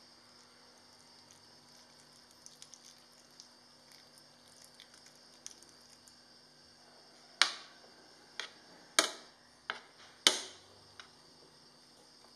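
A metal spoon knocking against a ceramic plate while mashing milk-soaked bread cubes: about six sharp clinks, each ringing briefly, in the second half. Before them there are only a few faint ticks over a steady high hiss.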